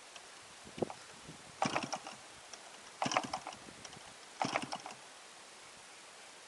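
Short clattering bursts of clicks from a model aircraft engine as its propeller is flipped over by hand, three times about a second and a half apart, without the engine starting.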